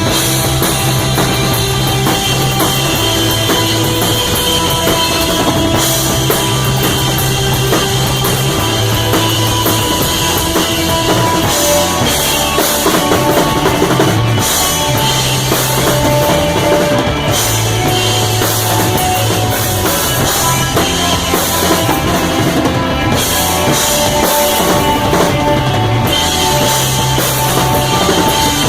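Rock band playing live: a drum kit with cymbals and bass drum drives a steady beat under a bass line that moves note to note every couple of seconds.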